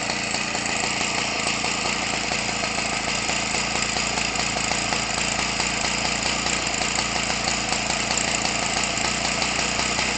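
Homelite 25 cc two-stroke engine, fitted with a Zama carburetor and an 18x6 propeller, running smoothly at a steady speed.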